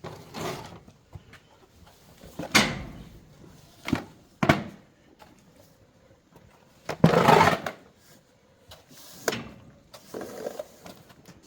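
Irregular knocks, scrapes and rustles from Hanwoo cattle feeding at a cattle-shed feed trough. About seven separate sounds, sharp ones about two and a half and four and a half seconds in, and the loudest, a longer rushing noise, about seven seconds in.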